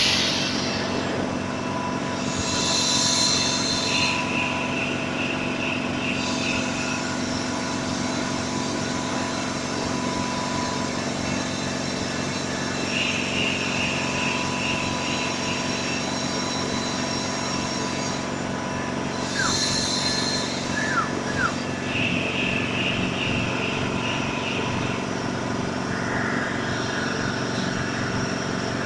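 Air compressor running steadily with an even machine hum, with brief higher-pitched hissy patches coming and going.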